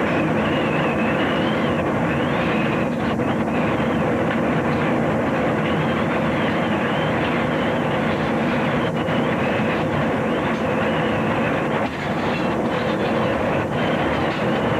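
F5 tornado's winds at close range: a loud, steady rushing noise with a high, wavering whistle over it.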